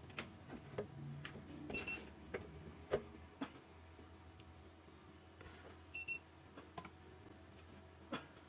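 Digital multimeter beeping in short pairs of high beeps, one pair about two seconds in and another about six seconds in, as its probes touch a hard-drive circuit board in a continuity check for a short to ground. Light clicks come from handling the meter and probes.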